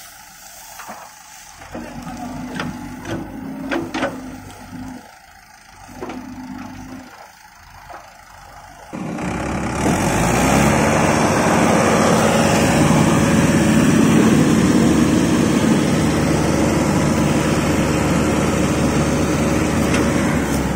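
Heavy diesel machinery working to free a tractor bogged in paddy-field mud: an engine ticks over unevenly with a few knocks. About nine seconds in, an engine opens up suddenly and runs loud and steady at high revs under load.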